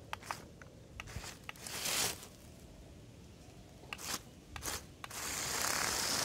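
Small electric RC stunt car with roller wheels driving over dry leaves: scattered crackling and clicking as it crunches through the leaf litter, with its drivetrain ratcheting. The sound becomes a steadier, louder rush about five seconds in.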